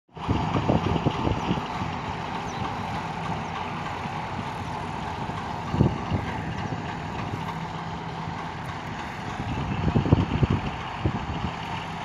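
Tractor diesel engine running steadily under load as it pulls a potato digger through the rows, the digger sifting soil and potatoes. A few louder low bumps come near the start, about six seconds in and around ten seconds in.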